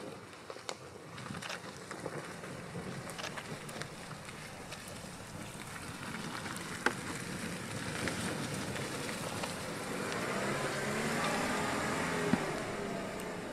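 New-generation Land Rover Defender crawling slowly over a muddy woodland track, with a low engine note and tyre noise and a few sharp clicks. The engine grows louder about ten seconds in as the vehicle passes close.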